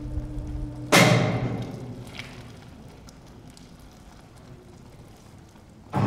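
Background music: two deep drum hits like timpani, about five seconds apart, each ringing out over a second or two. Before the first hit there is a steady low hum.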